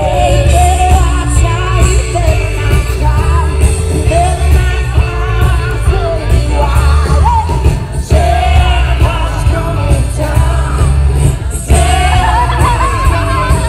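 Live band playing amplified music with drums, electric guitars and keyboard, a singer's voice over heavy bass.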